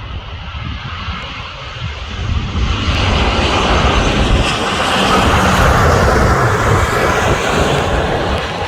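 Boeing 787-9 Dreamliner's twin Rolls-Royce Trent 1000 turbofans passing close, a deep rumble with a rushing jet noise that swells about three seconds in and stays loud.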